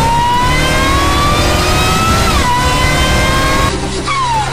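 Car engine accelerating hard, its pitch climbing steadily with one quick upshift about two seconds in, then the pitch falls away steeply near the end as the car passes or lifts off. A loud sound effect.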